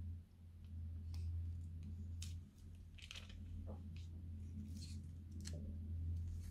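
Faint crinkling and clicking of a plastic piping bag being squeezed, with soft wet squishes as thick yellow slime glue runs out into the liquid in the bowl, over a steady low hum.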